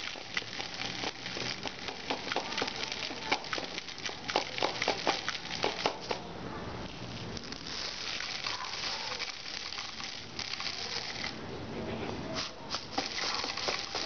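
Pearl millet (bajra) grains poured from a jar into a funnel and plastic bottle, pattering and rattling. There are many small clicks, a steadier hiss of flowing grain in the middle, and more scattered clicks near the end.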